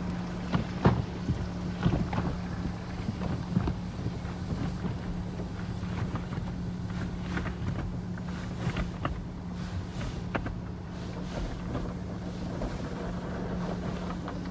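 Automatic tunnel car wash heard from inside the car: cloth strips and brushes swish and slap over the body and glass while water and soap spray. A steady low hum runs underneath, and sharp knocks come mostly in the first few seconds.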